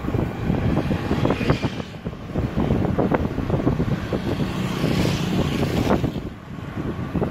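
Wind buffeting the microphone of a phone carried on a moving bicycle, with road rumble. The gusting is steady and uneven and eases about six seconds in.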